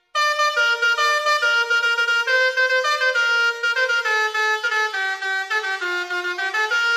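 Basuri multi-tone horn, the Indonesian 'telolet' horn, playing a tune: a run of short stepped notes, several a second, rising and falling in pitch.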